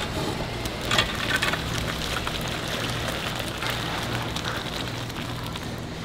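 Hot oil in a deep fryer sizzling with a steady, fine crackle over a low hum, with a single knock about a second in.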